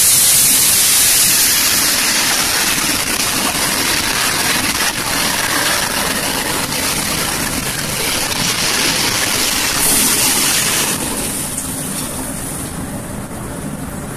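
Dishwasher spray arms jetting water, a loud steady hiss of spray that starts suddenly just before, surges briefly about ten seconds in, then drops back and eases near the end.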